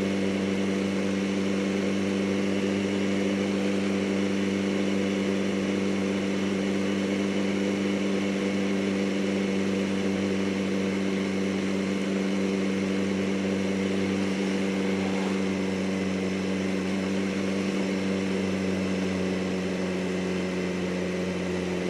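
Yamaha R1's inline-four engine running at a steady, even pitch while the motorcycle cruises, over a constant hiss of wind and road noise.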